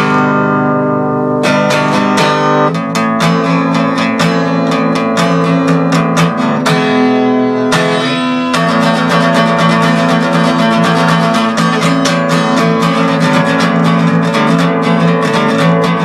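Acoustic guitar strummed in a steady rhythm with no singing, an instrumental passage of the song. Twice, about a second in and again around seven seconds in, a chord is left to ring briefly before the strumming picks up again.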